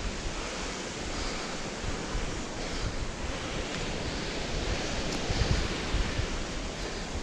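Sea waves washing steadily onto a mixed sand-and-shingle beach, with wind rumbling on the microphone now and then.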